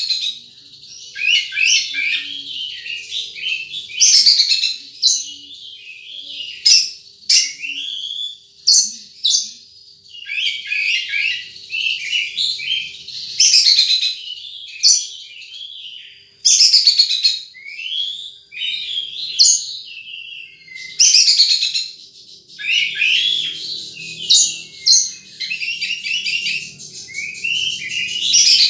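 Wild sunbird singing: a fast run of high chirps and twitters, broken every few seconds by loud, sharply falling whistled sweeps.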